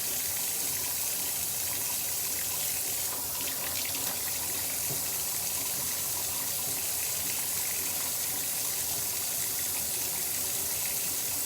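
Kitchen faucet running steadily into a sink as potatoes are washed under it.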